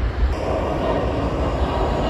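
Airbus A330-900's Rolls-Royce Trent 7000 turbofans at takeoff thrust as the jet lifts off and climbs away: a loud, steady jet noise over a deep rumble. The sound shifts abruptly about a third of a second in.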